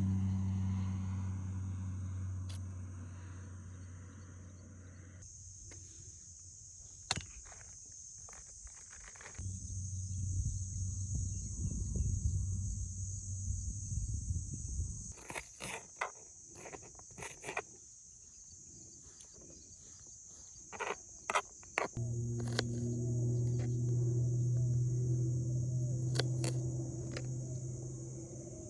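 Insects shrilling in a steady high-pitched drone, joined twice by a low steady hum that lasts a few seconds each time, with scattered clicks and taps.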